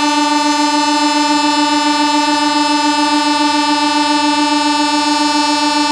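Locomotive air horn sounding one long steady blast.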